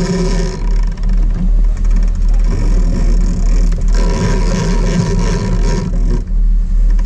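Sport-fishing boat's engines running steadily while trolling, with wake and wind noise at the stern and a low throb pulsing about twice a second.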